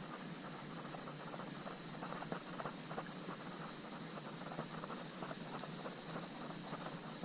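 Faint, irregular patter of small water splashes and lapping against a kayak hull, over a steady hiss.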